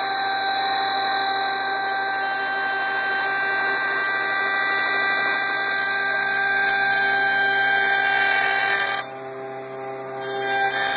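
CNC wood lathe's router spindle running with a steady whine while its cutter routs lengthwise flutes into a turned wooden spindle. About nine seconds in the sound drops away briefly, then builds again near the end.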